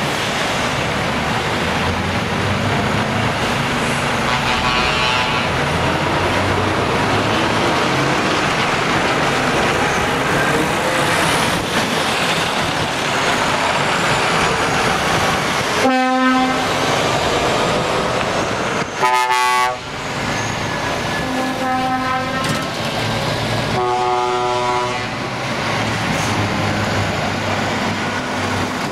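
Heavy trucks' diesel engines running as they pull away one after another, with several blasts of truck air horns, the loudest about halfway through and again a few seconds later.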